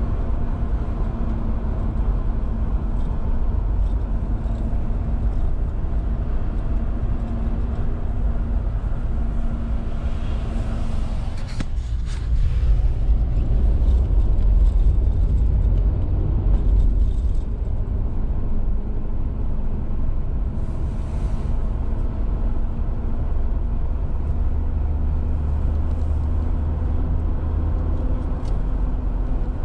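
Car being driven, heard from inside the cabin: a steady engine and road rumble, a little louder for a few seconds about halfway through.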